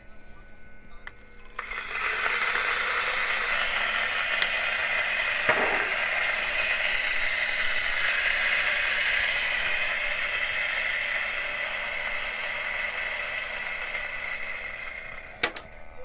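Option O P64 grinder with Mizen burrs grinding an 18 g dose of espresso beans straight into a portafilter. The motor and burrs run steadily for about fourteen seconds, starting about a second and a half in and stopping near the end, followed by a few light clicks.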